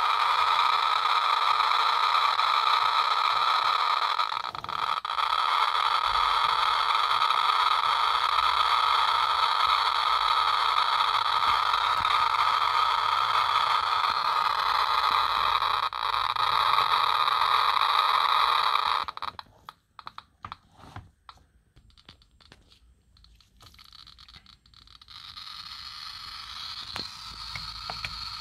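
Geiger counter's audio clicking so fast over pitchblende uranium ore, at over 125,000 counts per minute, that the clicks merge into a dense, steady crackling hiss. About 19 seconds in it cuts off suddenly to a few scattered single clicks, and a fainter steady crackle returns near the end.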